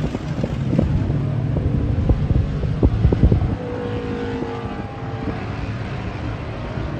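Engines of a pack of late model race cars running at speed on the circuit, with a steady engine note through the middle. Wind buffets the microphone, heaviest in the first half.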